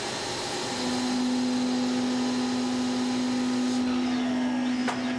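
Lathe turning hardened M-2 high-speed steel with a carbide cutting tool under flood coolant. The spindle runs with a steady hum that steps up slightly in pitch about a second in, over a hiss of coolant and cutting. The upper part of the hiss drops away near the end.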